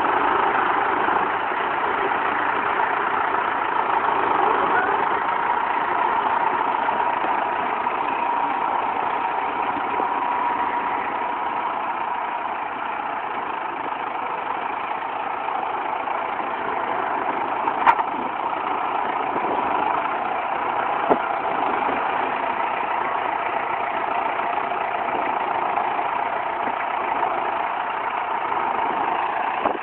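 John Deere tractor's diesel engine running steadily while the tractor drives and works its front loader. A sharp knock comes about 18 seconds in, and a smaller one about three seconds later.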